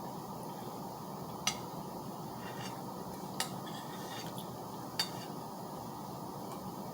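Cutlery clinking against a plate: three sharp clinks about a second and a half, three and a half and five seconds in, with a few fainter taps between, over a steady background noise.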